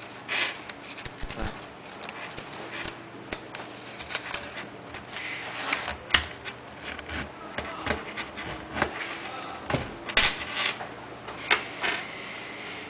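Handling noise from a black zippered clutch wallet: irregular rubbing, rustling and small clicks and knocks as it is opened, a card slipped inside and the wallet closed and turned over, over a faint steady hum.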